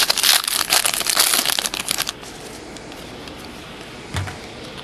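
Wrapper of a 2008 Limited football trading-card pack being torn open and crinkled by hand, a dense crackling that stops about two seconds in. A soft thump follows near the end.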